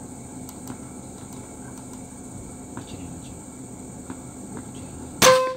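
Steady high-pitched insect drone, then near the end a single sharp air-rifle shot with a brief metallic ring.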